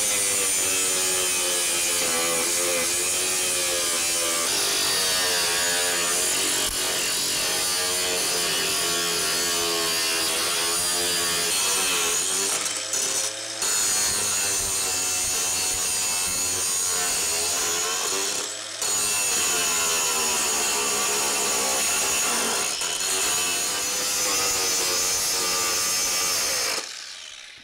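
Angle grinder grinding the heads off steel rivets, its whine wavering and dipping in pitch as it bears into the metal. It pauses briefly twice, about 13 and 19 seconds in, and stops shortly before the end.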